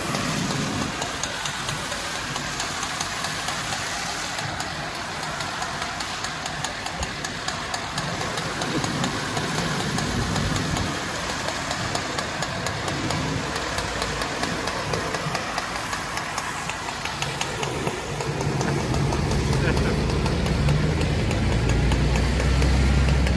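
Fire hose spraying water onto a burning car, a steady hiss, over a fire engine's engine running; the engine sound grows louder in the last few seconds.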